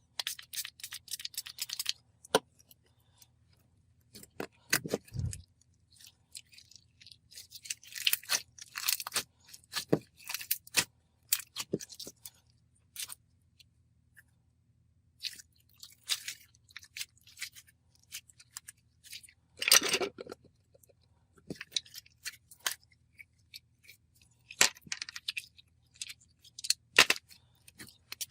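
Hands squishing, pressing and poking a stiff, putty-like clear slime, giving irregular crackling clicks and pops in short runs with pauses between.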